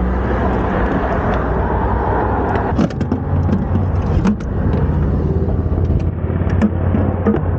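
A car engine running steadily, with scattered sharp clicks and knocks over it, strongest about three and four seconds in and again near the end.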